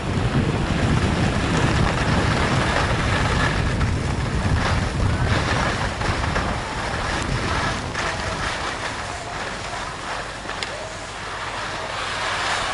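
Wind buffeting the microphone and skis hissing over packed snow on a downhill run. The rumble eases off about halfway through as the skier slows to a stop.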